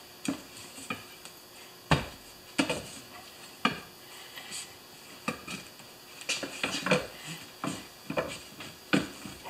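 Steel tire-changing bar clanking and knocking against the wheel rim and changer post as the bead of a small lawn-tractor tire is levered off by hand. A dozen or so irregular metallic knocks and clinks, the sharpest about two seconds in.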